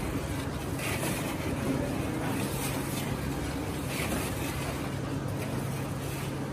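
A long-handled metal ladle stirring a huge steel pot of chickpea curry, with soft sloshing strokes every second or so over a steady low hum.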